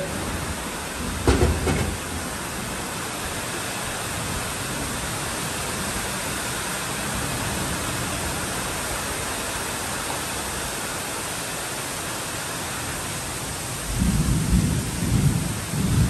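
Heavy storm rain falling as a steady, even hiss. A short low rumble comes about a second in and a longer one near the end.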